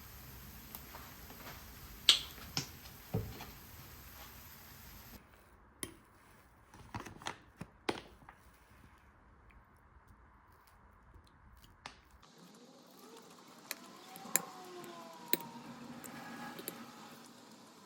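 A scattered series of sharp clicks and knocks, as of small objects being handled, over quiet room tone; the background hiss changes abruptly twice.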